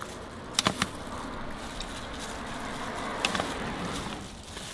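Metal tongs clicking against a plastic bowl as kimchi is tossed and mixed by hand: a quick run of three sharp taps about half a second in and two more a little after three seconds, over a steady background hiss.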